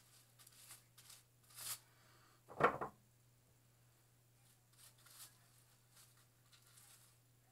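Faint, scratchy rustling of wet, henna-coated hair being lifted and worked with a tint brush's pointed tail, with a short, louder bump about two and a half seconds in, over a steady low electrical hum.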